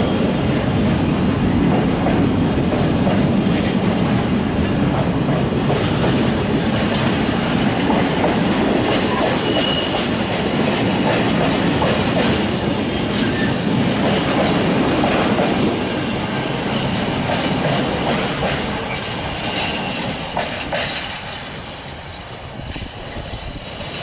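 Container freight train's flat wagons rolling past close by, wheels clicking over the rail joints. The sound fades away as the last wagons pass and the train draws off.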